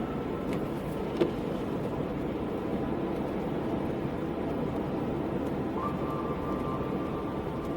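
Car driving at a steady speed: even road and engine noise, with a single light click about a second in.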